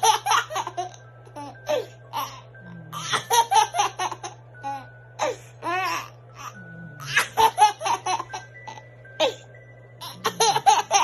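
A baby laughing in repeated bursts of giggles over light background music.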